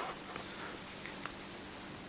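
Soft handling of a fashion doll and its wig: a few faint light taps over steady background hiss.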